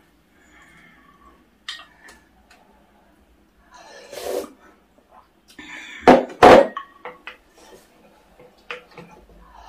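Tableware and eating sounds: light spoon clicks against bowls, with two loud noisy sounds close together about six seconds in.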